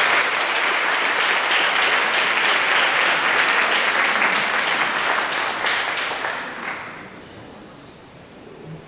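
Audience applauding, a dense wash of clapping that dies away about seven seconds in.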